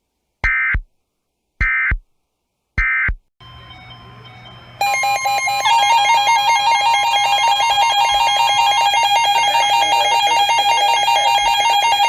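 Three short screeching Emergency Alert System data bursts about a second apart: the end-of-message code that closes a weather radio broadcast. A few seconds later a loud electronic alert tone starts, several steady pitches pulsing rapidly, the alarm that opens the next warning broadcast.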